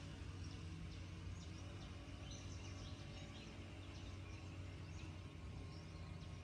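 Faint outdoor ambience: short, scattered high bird chirps over a steady low hum.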